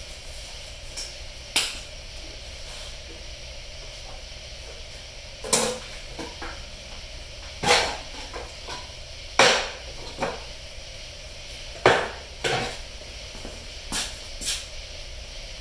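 Short, irregular scrapes and knocks of a spreader working Bondo glass fiberglass filler on a mixing board, about nine in all, the loudest two near the middle.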